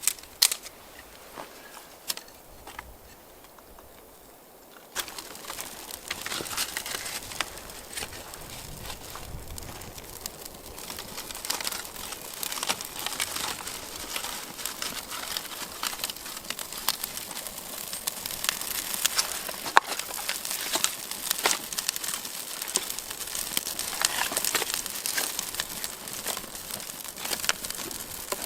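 Freshly lit wood campfire crackling with many sharp snaps and pops, sparse at first, then louder and busier from about five seconds in as the fire catches.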